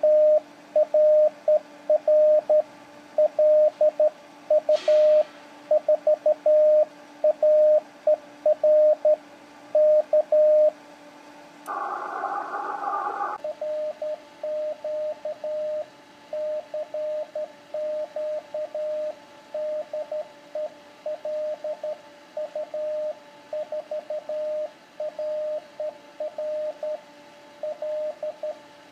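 Morse code sidetone from an Icom IC-7000 transceiver: a single mid-pitched tone keyed on and off by hand with a Vibroplex straight key, sending a CW CQ call. About 12 seconds in there is a short burst of hiss for a second and a half, after which the keying goes on a little quieter.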